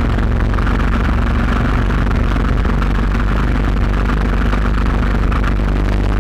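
Small vehicle engine running steadily at speed, heard from on board, with constant hiss from air and road.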